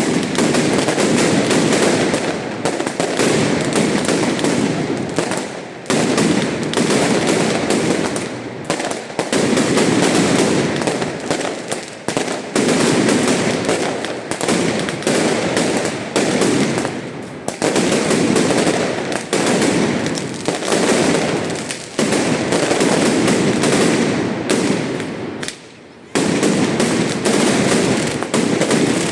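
Dense, continuous barrage of firework bangs and crackling, loud throughout, easing off briefly several times before surging again.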